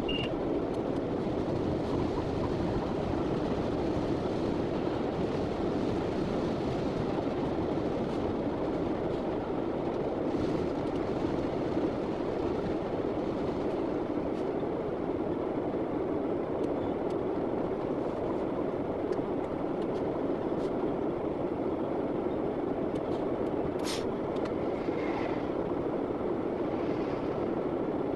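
Class 66 diesel locomotive's two-stroke V12 engine and wheels running steadily, heard from inside its cab as it travels along the line. One sharp click comes near the end.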